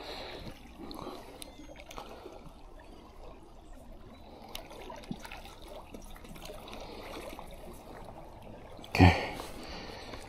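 Faint lapping of seawater on seawall rocks, with small scattered clicks from a spinning reel as its handle is unscrewed and switched from the left to the right side. A short louder noise comes about nine seconds in.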